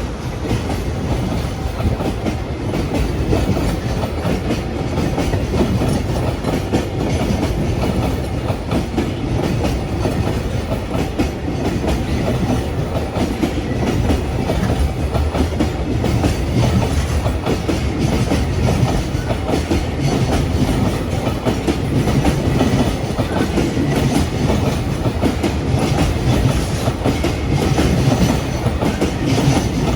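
Freight train passing close by at a level crossing: a long, steady run of wagon wheels clattering over the rails with dense clicking, strongest in the low range, and no let-up.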